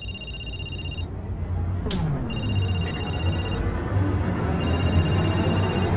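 Electronic telephone ring, three rings each about a second long, over a low droning horror score that slowly swells. A single sharp hit comes about two seconds in.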